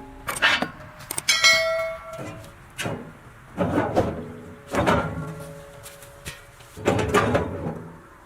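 A series of irregular heavy knocks and clanks, about one every second or so, one of them about a second and a half in ringing out briefly like struck metal.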